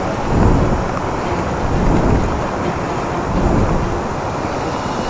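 Motorcycle on the move: its engine running under a steady rush of wind and road noise, with low swells about once a second.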